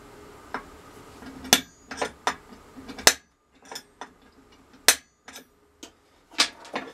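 Sharp metallic snaps and clicks, four loud ones about a second and a half apart with lighter taps between: an automatic centre punch being pressed onto a metal plate to mark a hole position for drilling.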